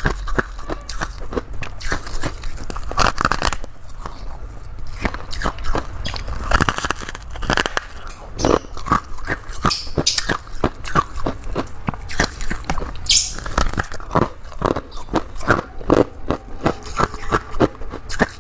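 A person biting and chewing crunchy freezer frost, giving many quick, irregular crunches, several a second.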